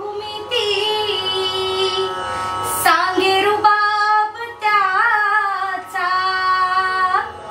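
A woman singing a Marathi song without accompaniment, drawing out long held notes with wavering ornaments in about four phrases with short breaks between them; the drum stays silent.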